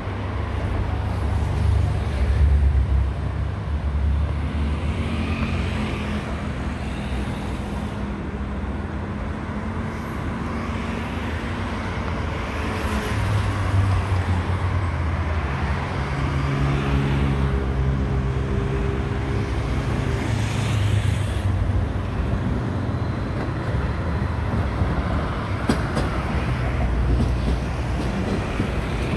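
Steady city road traffic, cars passing on a busy street, with an Athens Line 1 electric commuter train approaching and running past below.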